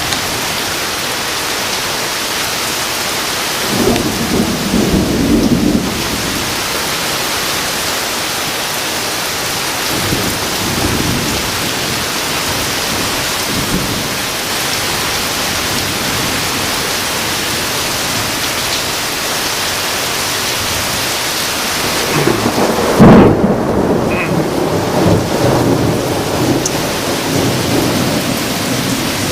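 Heavy thunderstorm rain falling steadily, with thunder rumbling several times: a rumble about four seconds in, fainter ones near ten and fourteen seconds, and the loudest crash a little after twenty seconds in that rumbles on for a few seconds.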